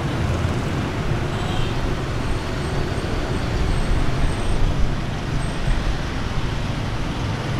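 Street traffic: motor vehicles running past with a steady low rumble of engines and road noise.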